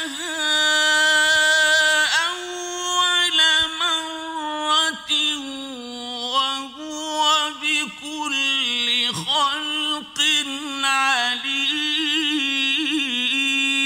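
A male reciter chanting the Qur'an unaccompanied in a melodic style, with long held notes and rapid wavering pitch ornaments, broken by short pauses for breath.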